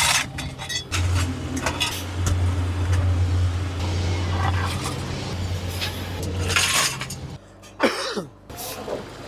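Workshop machinery running with a steady low hum, with scattered metallic clinks and knocks. The hum stops shortly before the end, and a brief falling whine follows.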